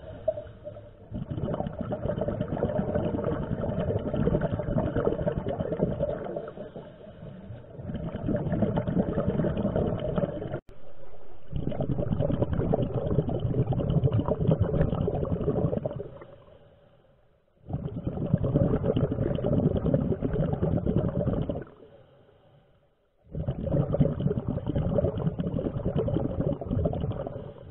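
Scuba diver breathing through a regulator underwater, heard as long rushes of exhaled bubbles lasting several seconds each, broken by short quiet pauses for each breath in, four times.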